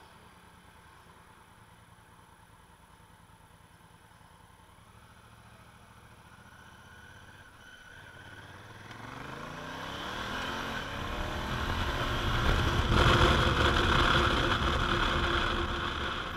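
Honda Africa Twin motorcycle's parallel-twin engine running quietly at low speed, then from about halfway through rising in pitch as the bike accelerates hard to around 60 km/h. Wind rush over the helmet or handlebar camera builds with the speed and becomes the loudest sound in the last few seconds.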